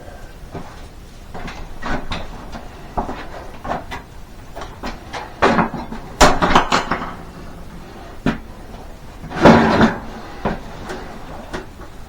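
Irregular knocks and clatter of a stick of electrical conduit being handled and fitted into place, with the loudest bangs about six and nine and a half seconds in.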